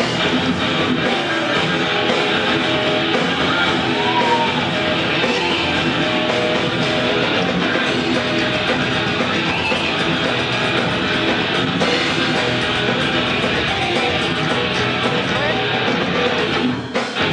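Heavy metal band playing live at a sound check: electric guitars through the stage PA, loud and continuous, breaking off right at the end.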